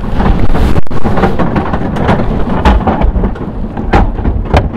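A crowd rising from its seats, with many short knocks of seats and feet over a loud low rumble of wind on the microphone.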